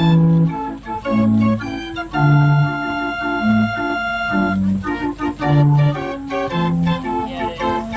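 Mechanical street organ playing a tune: held melody notes over a bass line that changes note about once a second.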